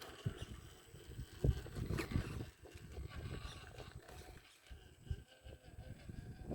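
RC crawler truck crawling over rough ground: irregular knocks and crunches of its tyres and chassis on dirt and rocks.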